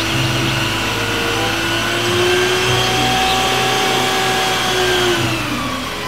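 Isuzu water tanker truck with its engine running while the roof-mounted water cannon shoots a high-pressure jet: a steady rushing hiss of water over the engine's hum.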